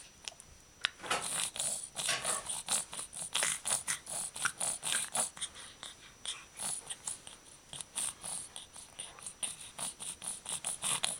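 Quick, snuffly breaths through a stuffed-up nose from a three-month-old with a cold: a steady run of short noisy snuffles, two or three a second.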